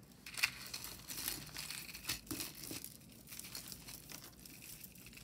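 A bag of jewelry being rummaged through by hand: irregular rustling, with a few light clicks.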